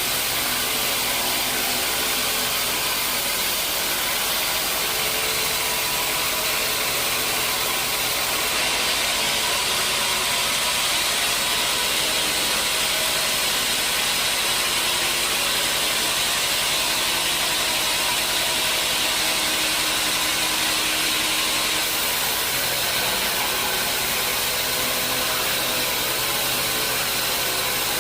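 Sawmill machinery running steadily: a low motor hum under a strong, even hiss, without a break.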